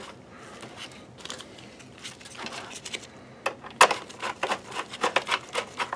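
Screwdriver turning a screw into a video projector's input panel: faint handling noise, then from about halfway a run of sharp, irregular clicks, several a second.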